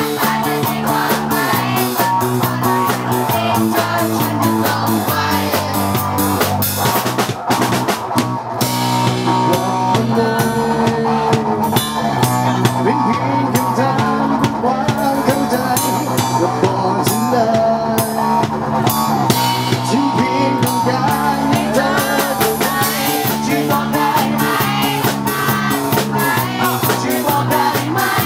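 Rock music led by a drum kit keeping a steady beat, with sustained pitched instruments underneath.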